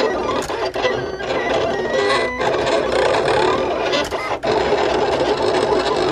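Electronic vinyl cutting machine at work: its stepper motors whine in short runs that shift up and down in pitch as the carriage drives the blade across the vinyl. Background music plays under it.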